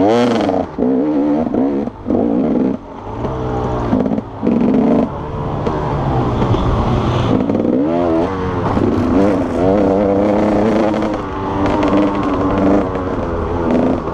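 Enduro dirt bike engine revving hard and easing off again and again as the rider works the throttle and gears, its pitch climbing and falling. In the first few seconds the throttle is chopped several times, giving short sharp drops in the sound.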